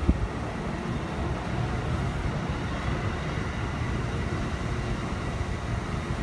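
Amtrak Amfleet passenger coaches rolling past: a steady rush of steel wheels on rail, with a faint high steady tone above it.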